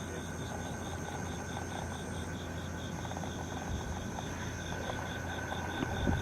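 Night chorus of calling animals: a rapid chirp repeating about five times a second over steady high trilling tones, with a low hum underneath.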